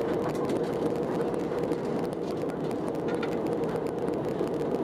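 Steady in-flight cabin noise of an Airbus A320 jetliner, an even rush of engine drone and airflow heard from inside the cabin.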